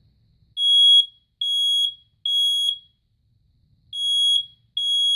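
Kidde Code One i9040 smoke alarm sounding on test: loud, high-pitched piezo beeps of about half a second each in the three-beep temporal pattern. Three beeps, a pause of about a second, then the next set of three begins.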